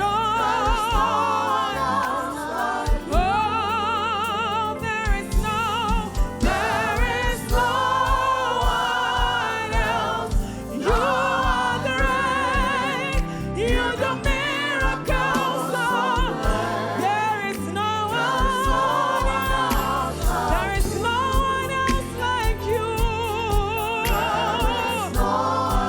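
Gospel worship song: sung vocal lines with heavy vibrato over a band with a steady low drum beat.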